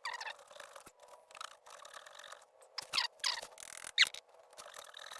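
Motorcycle chain being scrubbed clean, in a run of irregular squeaky, scratchy strokes. The loudest strokes come about three and four seconds in.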